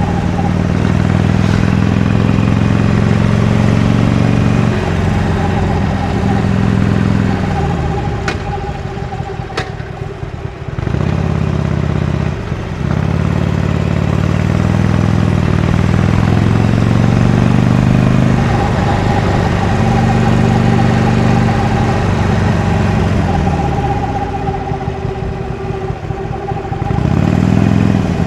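Harley-Davidson Iron 883's air-cooled V-twin running through its stock exhaust while riding. It pulls up in pitch, eases off about a third of the way in with a short break near the middle, builds again, then backs off and picks up once more near the end.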